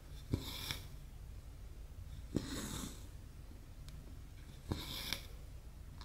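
Embroidery needle and thread going through cross stitch Aida cloth: three stitches about two seconds apart, each a small click as the needle pops through, followed by a short rasping swish as the thread is pulled tight.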